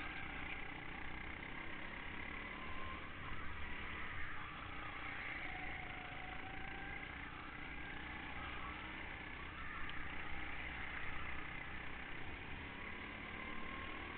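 Go-kart engine running at racing speed, heard from on board the kart, its note rising and falling through the corners, with the engines of other karts running close ahead.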